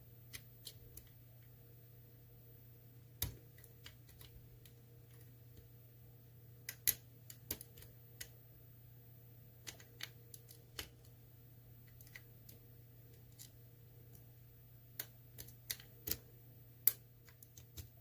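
Lock pick and tension wrench working inside an ASSA Twin Combi lock cylinder: irregular small metallic clicks and taps as the spool pins are picked, a few sharper clicks near the end, over a steady low hum.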